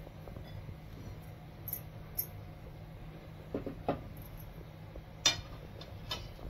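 A few light metallic clinks and taps as an aluminium cooking pan is handled by its handle on the stovetop, the sharpest one about five seconds in, over a faint steady low hum.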